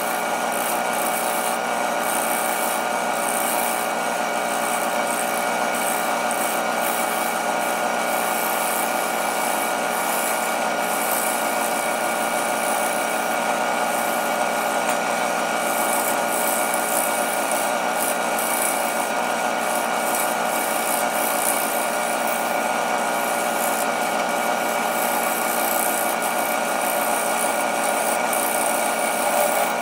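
Grizzly wood lathe running steadily while a gouge cuts the outside of a spinning walnut bowl blank. The motor's steady whine sits under a rough, flickering hiss from the cut.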